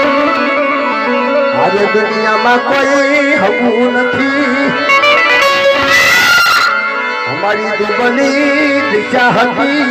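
Harmonium playing held, reedy chords under a man singing a Gujarati devotional folk song. About six seconds in there is a brief, loud burst of noise that reaches high.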